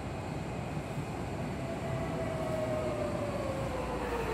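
Seibu 6000 series electric train running into a station, a steady rumble with a whine that starts about a second and a half in and falls smoothly in pitch as the train brakes: the traction motors winding down.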